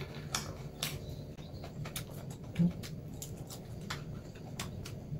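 Eating a salad: a fork clicking and scraping against a plastic container, with scattered sharp clicks and quiet chewing of leafy greens.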